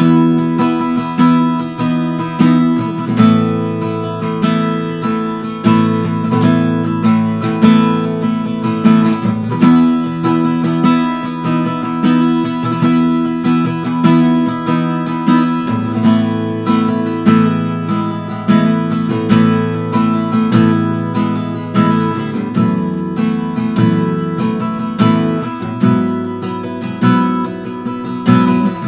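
D&D Django Jr mahogany travel-size acoustic guitar played unplugged: chords ringing out with a steady pulse of strokes, changing every few seconds.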